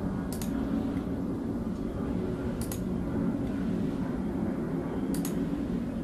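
Three computer mouse clicks, each a quick double click of press and release, a little over two seconds apart, over a steady low droning hum.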